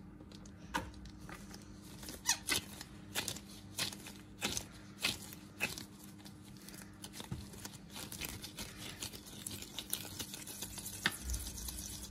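Hands pressing and shaping moist chalk paste into small cookies and setting them down, with irregular small clicks and taps.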